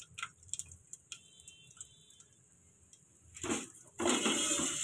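Spatula stirring dry vermicelli strands in a frying pan, a rustling scrape against the pan that starts about three and a half seconds in and continues to the end, after a few faint clicks.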